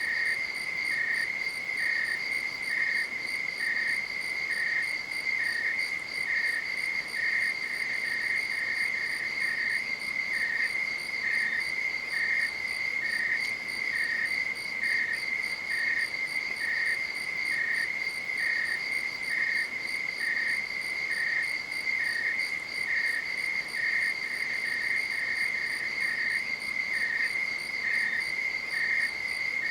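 Night insects calling: an unbroken high-pitched trill, with a second insect chirping steadily about once a second just below it.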